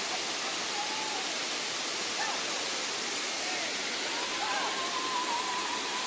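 Tirathgarh waterfall rushing steadily as its water cascades down stepped rock into the pool below.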